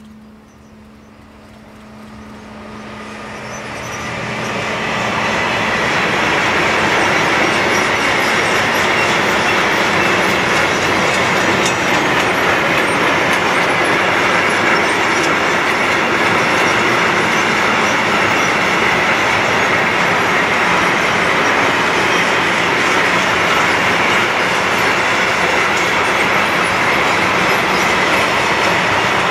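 Freight train of sliding-wall wagons hauled by a DB class 185 (Bombardier Traxx) electric locomotive passing close by. The noise swells over the first few seconds as the locomotive comes near, then holds as a steady, loud rolling of wagon wheels on the rails.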